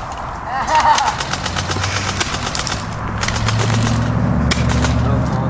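Airsoft guns firing rapid full-auto bursts: one long burst in the first half, a shorter one about three seconds in, then a single shot. A steady low hum comes in underneath about a second and a half in.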